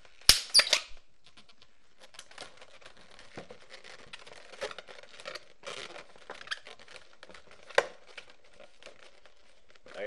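A latex modelling balloon popping with one sharp bang about a third of a second in, as the excess bubble is got rid of. Then latex balloons are handled and twisted, with crinkly rubbing and squeaks and one more sharp snap near the end.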